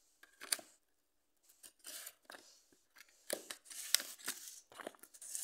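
Sheet of paper rustling and crinkling as it is handled and folded, in a series of short crisp scrapes.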